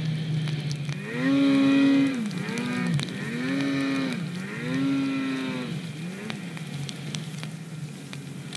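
Snowmobile engine revving up and down about five times in quick succession, the pitch rising, holding and falling with each throttle blip as the sled works through deep powder, then settling lower near the end.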